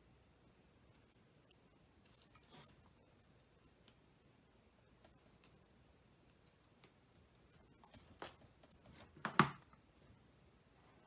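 Faint scattered clicks and light scratches of a pointed tool and fingers working crimped pins in a small plastic JST SH wiring-harness connector, in two clusters, about two seconds in and near the end, where the sharpest click falls.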